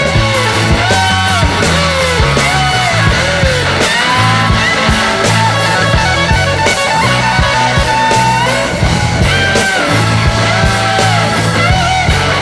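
Rock music with electric guitar and a steady beat, the bass in regular blocks; a bending melodic line runs over it.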